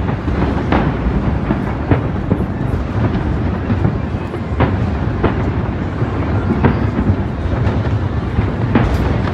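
Aerial fireworks going off: a string of sharp bangs, about one a second at irregular spacing, over a continuous low rumble of bursts.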